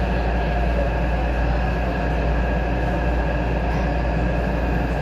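Cabin noise of a Taipei Metro C371 steel-wheel metro train running in the tunnel as it nears its terminal station: a steady, strong low rumble of wheels on rail with a few steady motor tones above it.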